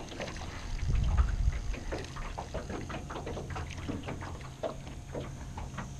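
Small waves lapping and splashing against a small boat's hull in irregular little slaps, with a low wind rumble on the microphone about a second in.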